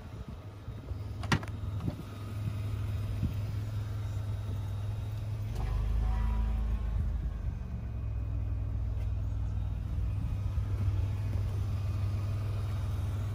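Car engine running at idle, a steady low rumble that swells briefly about six seconds in, with a single sharp click about a second in.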